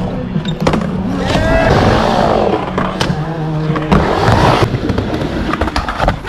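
Skateboard wheels rolling on a wooden vert ramp, the roll noise swelling and fading as the rider rides up and down the transition. Several sharp knocks of the board and trucks hitting the ramp cut through it.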